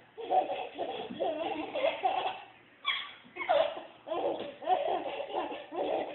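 A baby laughing and giggling in quick, high-pitched bursts, with a short pause about halfway through.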